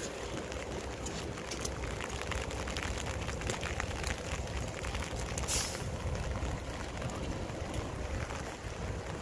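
Diesel engine of a Hyundai New Power 9.5-ton truck running as the truck pulls slowly away, with a steady low rumble and its tyres hissing over wet, puddled concrete. There is a short sharp hiss about five and a half seconds in.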